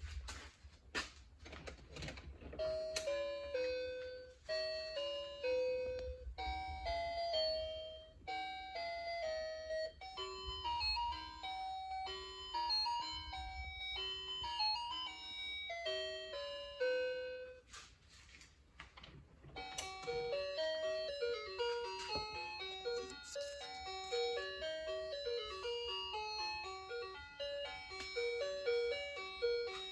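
A tinny electronic melody of short bell-like notes, with a few clicks near the start; about two-thirds of the way through it briefly drops back, then goes on in a busier part.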